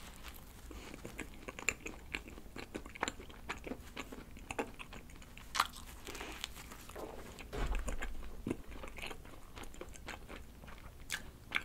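A person biting into and chewing a soft mint-chocolate cream-filled doughnut close to the microphone: irregular, quiet mouth clicks and smacks, a few louder than the rest.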